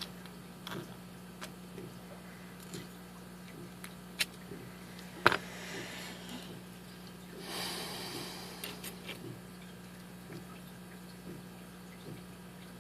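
Small metal clicks and scraping of a tool working at the stubborn retainer clip on a Schlage padlock's pin-tumbler core. One sharp click about five seconds in, and a brief scratchy scrape near eight seconds.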